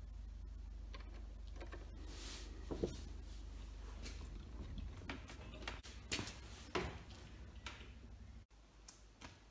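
Faint clicks and scrapes of a steel wire-rope tether being clamped in a bench vice and pulled on, over a low steady hum that fades about six seconds in.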